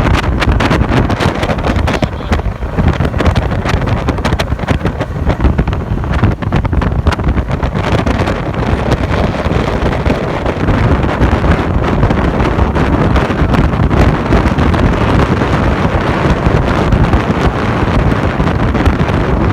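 Wind buffeting the microphone on a moving boat, a loud steady rush with many sharp crackles through roughly the first eight seconds.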